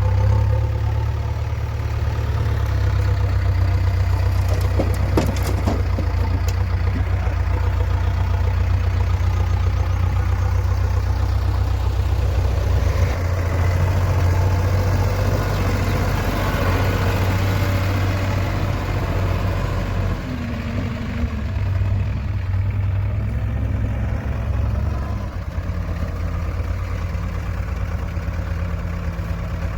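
Heavy diesel machinery engine running steadily, its note shifting several times as the load changes. A few sharp metallic knocks come about five seconds in.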